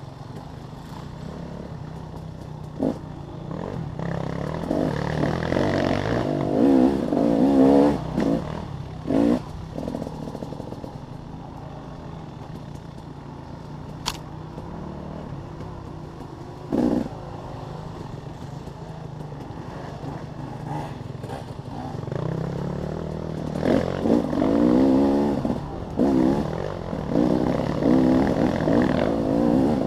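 Dirt bike engine revving up and down again and again as it is ridden over rough ground, the revs climbing and falling hardest twice, about six to ten seconds in and again from about twenty-three seconds on. Knocks and clatter from the bike over the bumpy trail come through, with one sharp click midway.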